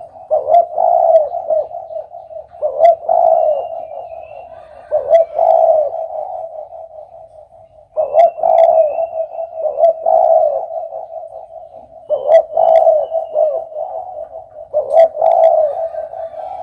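Spotted dove (derkuku) cooing: repeated phrases of a few low notes, one phrase every two to three seconds, with a longer pause about halfway through.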